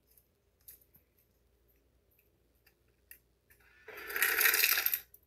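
Refrigerator door ice dispenser dropping ice cubes into a blender cup: a loud clattering rush lasting just over a second, starting about four seconds in, after a few faint knocks.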